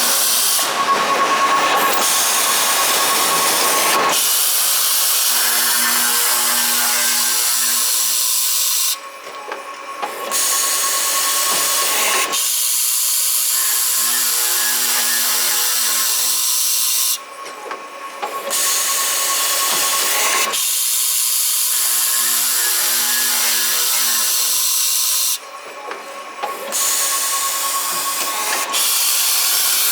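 LYJ-50 CNC pipe cutting machine running automatic cutting cycles on 21 mm pipe: a steady motor hum under a loud hiss, repeating about every eight seconds, each cycle with a sharp click and a short quieter lull.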